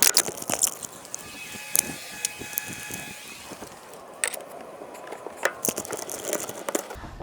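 Hand tools clicking and rattling against metal while screws are driven into an aftermarket steering-wheel hub, a string of sharp irregular clicks with ratchet-like clicking.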